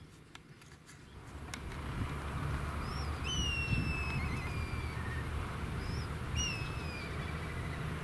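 Black kite calling in flight: two long, high, descending whistles, each trailing off into a wavering quaver. The first comes about three seconds in and the second about six seconds in, with a few short high notes between them, over a steady low rumble.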